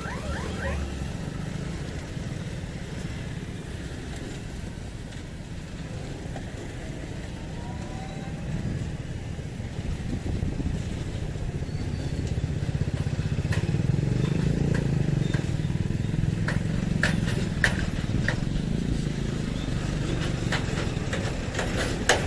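Low steady rumble of road vehicle engines, motorcycles among them, growing louder about halfway through, with a few sharp clicks.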